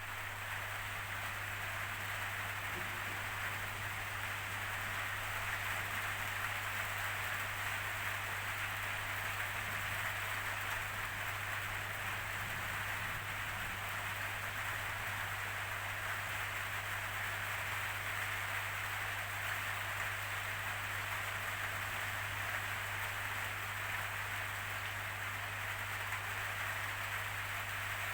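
Steady rainfall, an even hiss of drops with no change in intensity, over a constant low hum.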